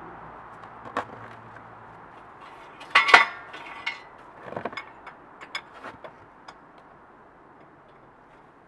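Steel parts of an engine hoist being handled: a single click, then a loud metal clank with a short ring about three seconds in, followed by several lighter clinks and clicks.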